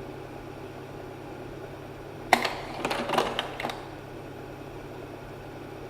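Slide projector's cooling fan humming steadily. About two seconds in comes a sharp clack, then a run of mechanical clicks and rattles for about a second and a half as the projector changes slide.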